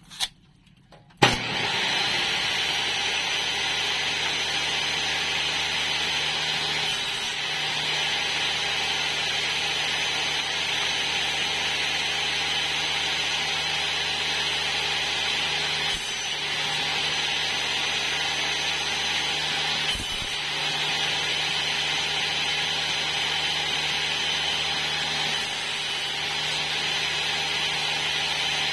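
Table saw switched on about a second in and then running steadily at full speed, just after a short snap of a tape measure blade retracting.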